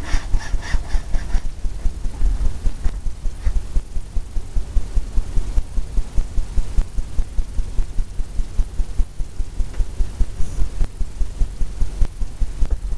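A deep, steady rumble that pulses rapidly and evenly.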